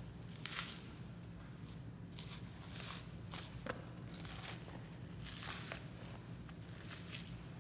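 Knife slicing through fat and membrane on a slab of Japanese Black wagyu short plate while the fat is pulled away by hand: irregular short cutting and tearing strokes, the longest about five and a half seconds in, over a steady low hum.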